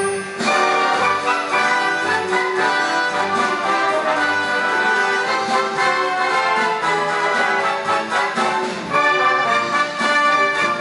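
Live symphony orchestra playing a Christmas overture, strings with the brass to the fore. The music briefly eases, then swells louder near the end.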